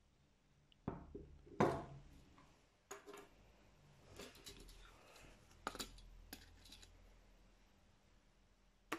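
Handling noises on a table: a metal adjustable wrench is set down with a clunk, then a steel tape measure is pulled out and laid along cardboard packaging, with scattered clicks and rattles.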